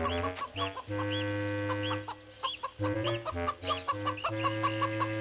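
Cartoon bird sound effect of short high chirping calls, about two a second, over soft sustained music notes: an injured bird calling for help.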